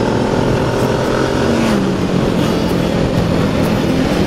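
Honda CBR600 sport-bike engine running at road speed, with wind rushing over the camera. The engine's pitch drops slightly about halfway through.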